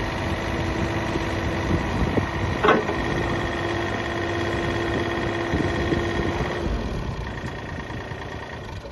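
Case excavator's diesel engine running steadily at idle, with a steady whine over it and a brief sharp sound about three seconds in. The whine stops about two-thirds of the way through and the engine sound eases off after that.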